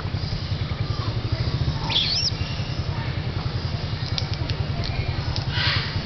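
A small engine idling steadily, a low, fast, even throb, with a short high chirp about two seconds in and a few faint chirps and clicks near the end.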